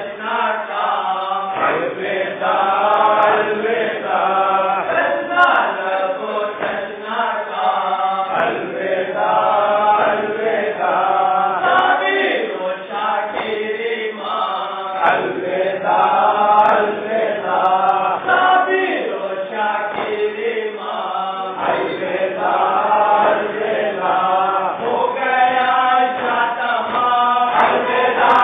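A group of men chanting a Muharram nauha (mourning lament) together in repeated sung phrases, while they beat their chests in matam.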